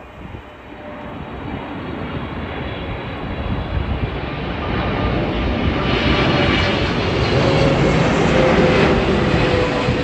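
Boeing 777-300ER's twin GE90-115B turbofan engines passing low overhead on landing approach: a jet rumble with a whine on top that grows steadily louder, loudest over the last few seconds.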